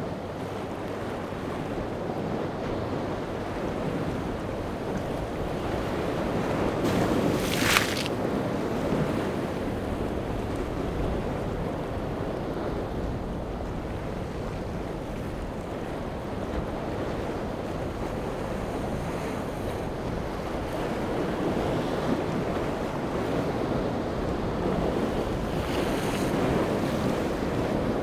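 Waves washing and breaking against a rock jetty, with wind buffeting the microphone. A short, sharper hiss of spray comes about seven seconds in.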